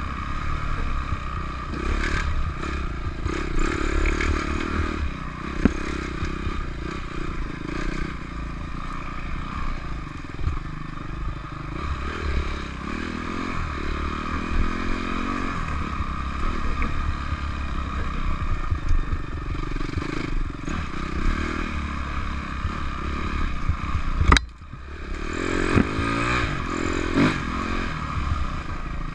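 Dirt bike engine running and revving up and down through tight trail riding, with the bike rattling and brush scraping past. A sharp knock near the end, the loudest moment, with the engine dropping off briefly right after.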